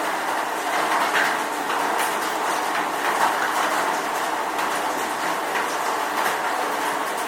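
Steady, unbroken rain noise with a faint low hum underneath.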